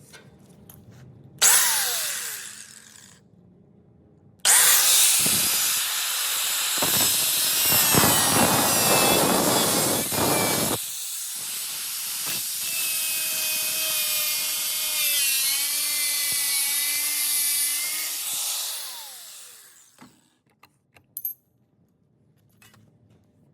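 A power tool running: a short burst about a second and a half in, then a long run of about fifteen seconds with a wavering whine in its second half, dying away near the end.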